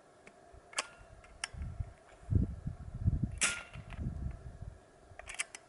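Sharp metallic clicks of a Talon P Carbine PCP airgun being loaded by hand, its bolt worked back and forth: single clicks about a second in, a stronger one past the middle, and a quick cluster near the end. Low rumbling handling noise runs under the middle stretch.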